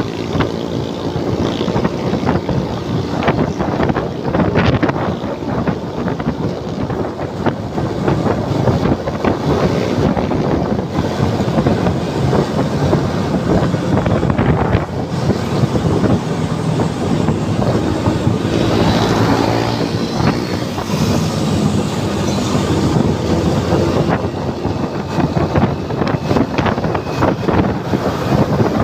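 Wind rushing over the microphone on a moving Suzuki motorcycle, with the bike's engine running steadily underneath and the sound of surrounding road traffic.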